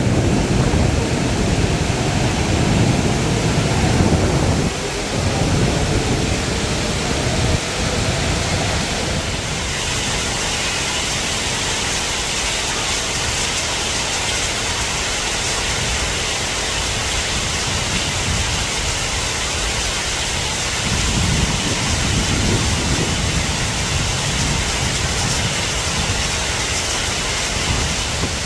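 Heavy rain hissing steadily. Under it, a Taipei Metro train rumbles out with a faint rising motor whine over the first several seconds. A train's low rumble swells again around 21 seconds in.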